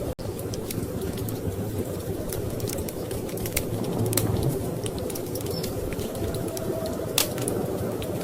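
Wood fire crackling in a fireplace, with scattered sharp pops and snaps over a steady low rumble of storm wind. The sound drops out for a split second just after the start.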